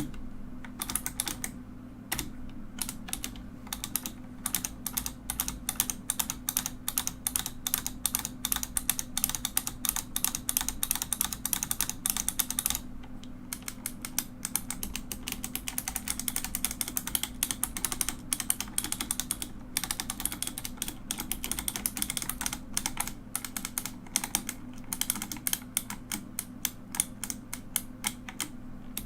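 Mechanical keyboard being typed on: a rapid, continuous clatter of key clicks, with a few brief pauses.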